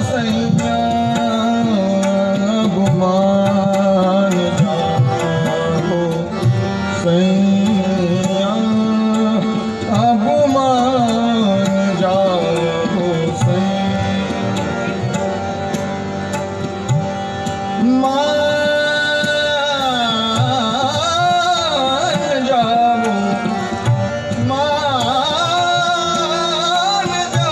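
Live Hindustani thumri: a male voice singing in gliding melodic phrases, with tabla playing a steady rhythm and harmonium accompaniment.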